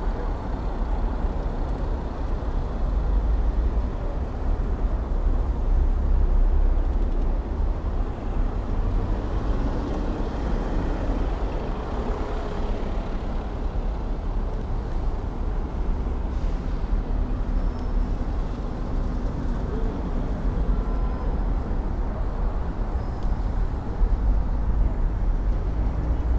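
Dense city traffic heard from among the cars: a steady wash of car and bus engines and tyres in a slow-moving jam, with a low wind rumble on the microphone of the moving bicycle.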